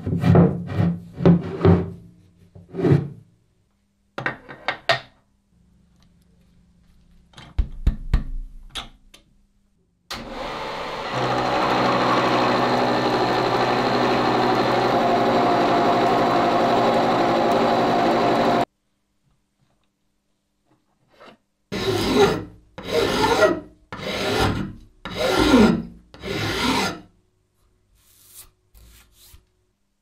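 A vertical milling machine's face mill cutting a block of H13 tool steel, a steady cutting noise with a hum that starts and stops suddenly and lasts about eight seconds in the middle. Before and after it come runs of short scraping strokes, about one a second.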